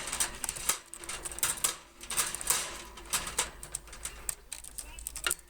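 Irregular clicking and rattling of a wire bird cage as a pet bird climbs on it and works at it with beak and feet.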